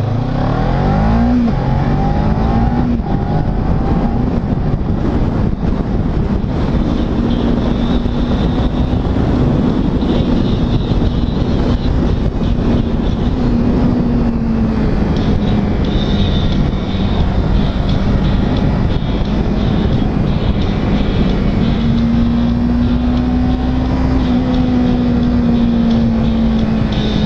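Kawasaki Ninja 300's 296 cc parallel-twin engine pulling away and shifting up, its pitch rising twice in the first few seconds. It then holds a fairly steady pitch that rises and falls gently with the throttle through the bends, over a steady rushing noise.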